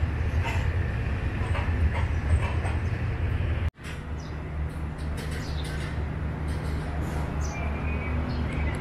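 Diesel train engine idling, a steady low pulsing hum. The sound cuts out sharply for an instant about four seconds in, then carries on steadily.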